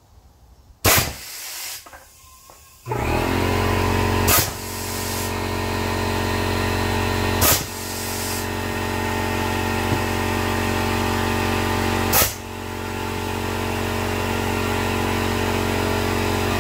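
Air-powered golf ball gun firing four times, each shot a sharp pop with a short hiss of escaping air after it. About three seconds in, a motor starts and keeps running steadily with a hum under the later shots.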